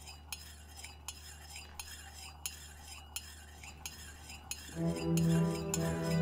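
A spoon clinking against a cup as it stirs: light, regular clinks about three a second. Slow bowed-string music with cello comes in about three-quarters of the way through.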